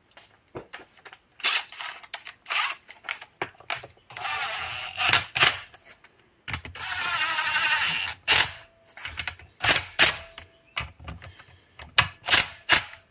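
Clicks and clatter of bolts and hand tools being handled, with a cordless drill-driver running in two short spells around the middle.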